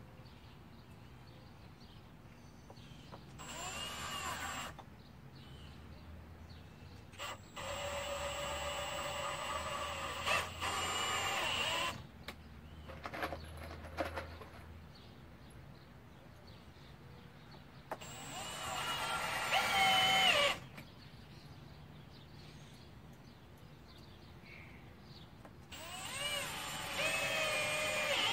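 Cordless drill running in four separate bursts, the longest about four seconds, its motor whine bending in pitch as it works into the wooden handrail.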